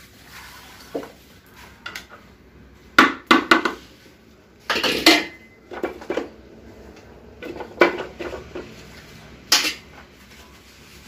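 Metal rod knocking against an automatic transmission's aluminium case: irregular sharp metallic knocks and clanks, some in quick clusters, to drive out a tight part that is usually hard to knock loose.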